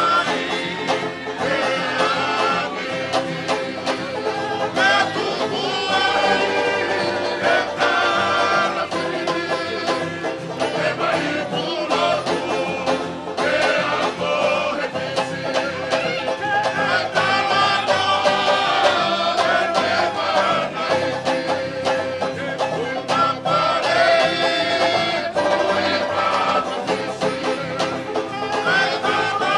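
Tongan string band playing a tau'olunga dance song live: acoustic guitars strummed and plucked while men sing along.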